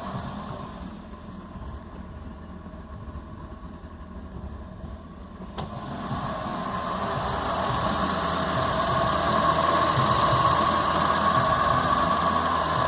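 Toyota 18R-G twin-cam inline-four engine of a 1981 Celica RA40 running steadily at idle. A single sharp click comes about halfway through, after which the engine sound grows gradually louder and stays at the higher level.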